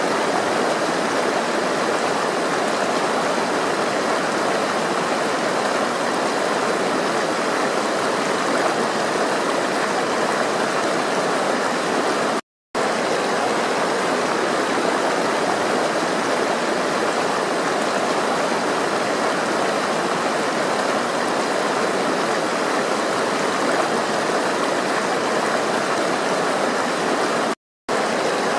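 Flowing water, a steady even rush with no change in strength. It cuts out completely for a split second twice, about halfway through and again near the end.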